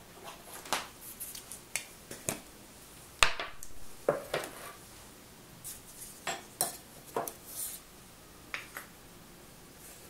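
Metal kitchenware clinking and knocking as it is handled on a countertop: a metal coffee tin set down and its lid taken off. It comes as a string of separate sharp clicks and clanks, the loudest about three seconds in.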